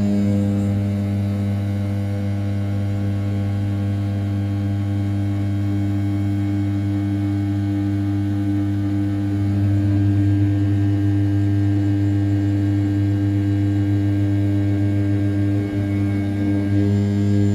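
The 500 W brushless spindle of an RZ420 desktop CNC mill turning at 6000 rpm while it rough-cuts the outer profile of an A7075 aluminium block. It gives a loud, steady hum made of evenly spaced tones, which gets a little louder about ten seconds in.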